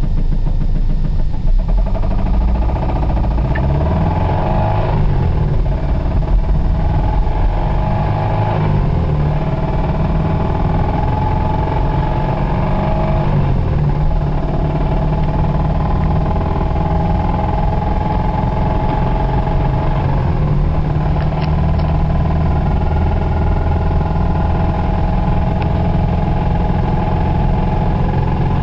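1991 Toyota Celica ST's four-cylinder engine running with a failing connecting-rod bearing, rising and falling in pitch a few times in the first half, then holding steady. The engine is close to failure: it threw the rod shortly after.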